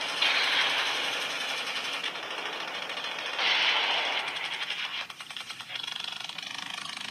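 A rapid, steady mechanical clatter, with two louder swells of hiss: one starting just after the beginning and lasting over a second, and a shorter one about three and a half seconds in.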